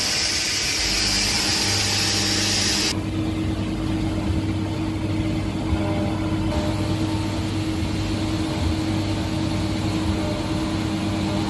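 CNC milling machine running with a steady mechanical hum while cutting slots. A loud hiss cuts off suddenly about three seconds in, leaving the hum.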